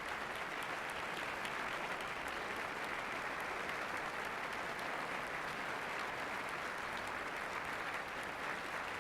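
Concert-hall audience applauding steadily after a performance, a dense even clapping that holds level.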